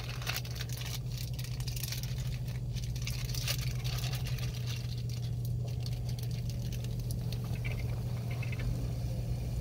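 Marinated sirloin steak pieces sizzling and crackling in a frying pan over a portable gas burner, with a steady low hum underneath.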